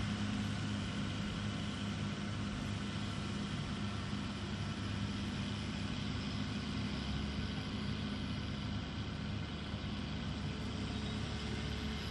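Heavy construction machine's diesel engine running steadily with a low, even drone.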